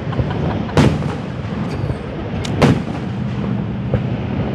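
Aerial fireworks shells bursting: two loud bangs, about a second in and again near three seconds, with a smaller crack just before the second, over a steady background rumble.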